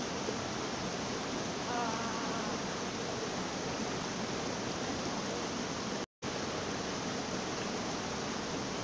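Small mountain stream running over rocks, a steady hiss of flowing water. It drops out briefly about six seconds in.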